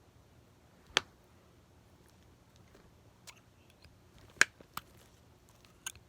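A few sharp clicks and knocks of small objects being handled, one about a second in and the loudest about four and a half seconds in, with fainter ticks between, over a faint room hum.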